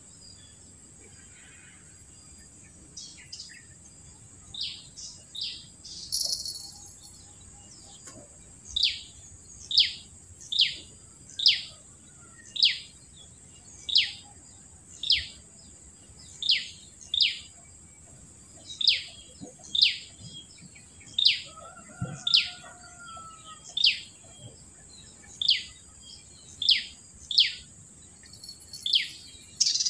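A bird calling over and over in short, sharp notes that each drop in pitch, about one a second, with a few scattered notes before the steady run starts. A steady high-pitched insect drone runs underneath.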